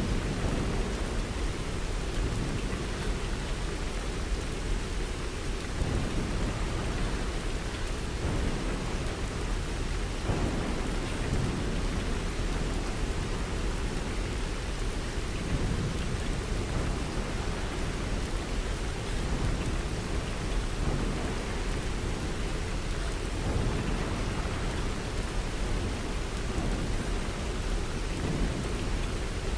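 Steady rain falling: an even, continuous hiss with a deep low rumble underneath that swells and ebbs.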